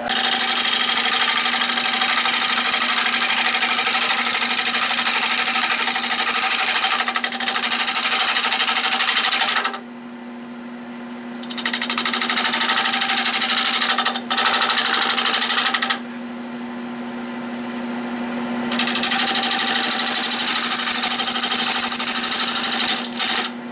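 Shear scraping on a spinning oak bowl on a Nova 16/24 wood lathe: a loud, steady scraping hiss of the scraper cutting the wood, in three spells broken by two pauses of about two seconds each. The lathe's steady hum runs underneath throughout.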